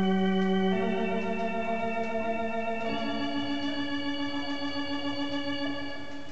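Electronic organ playing long held chords, changing chord about a second in and again about three seconds in, then dying away near the end: the opening of a cumbia track.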